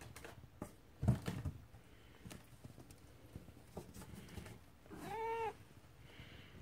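A house cat gives one short meow, rising then falling in pitch, about five seconds in. About a second in there is a thump and scuffle as a cat jumps up onto a cardboard box.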